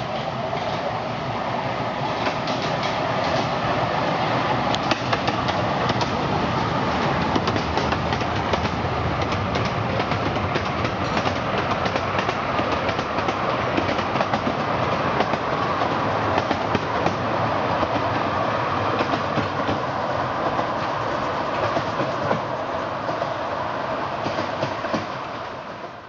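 Miniature 10¼-inch gauge steam train's carriages rolling past, their wheels clicking and rattling over the rail joints, fading away near the end.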